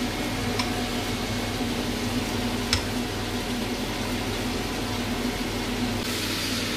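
A metal ladle clinks twice against a ceramic bowl as soup is ladled in, the second clink sharper. A steady mechanical hum runs underneath.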